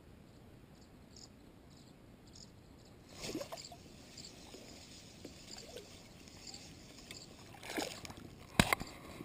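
Spinning rod and reel being handled from a kayak while a small fish is hooked and reeled in: light rubbing and rustling from about three seconds in, and one sharp click near the end.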